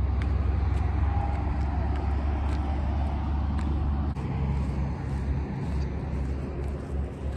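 Wind buffeting the microphone: a low, uneven rumble that dips briefly about four seconds in.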